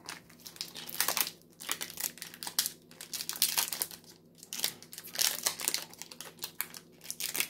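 Foil booster pack wrappers crinkling and tearing as packs are handled and opened, a dense run of crackles in short spells with brief pauses.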